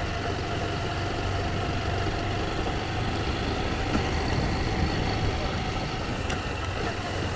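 Honda CG 160 Fan motorcycle's single-cylinder four-stroke engine running steadily while the bike rides over cobblestones. A small front-end noise is still there after clips were tightened; the rider takes it for the vibration and knocking that has not yet been cured.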